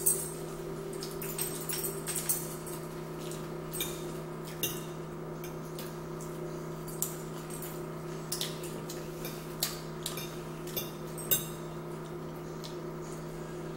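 Eating at a table: scattered small clicks and clinks of a fork against a plate and mouth sounds of chewing, over a steady hum.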